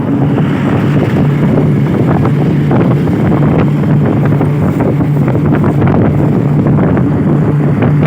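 Steady vehicle engine drone with wind buffeting the microphone and a constant low hum, as heard from a vehicle moving in traffic.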